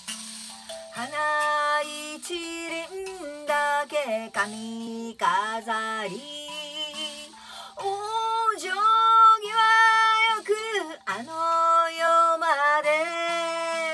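A woman singing to her own kalimba accompaniment. Kalimba notes ring alone for about the first second, then the voice comes in with long held notes that glide between pitches.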